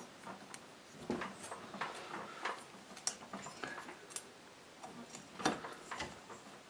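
Faint, irregular clicks and light metal taps from a 125cc engine's aluminium cylinder barrel being eased by hand down its studs over the oiled piston and rings, with no ring compressor.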